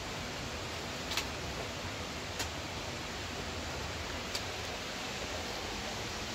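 Steady rush of flowing water from a nearby mountain stream, with three short sharp knocks, at about one, two and a half and four and a half seconds in.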